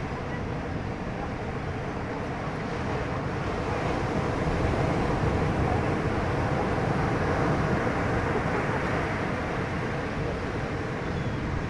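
Boat engine running steadily under way, with a steady rushing noise over it that grows a little louder in the middle.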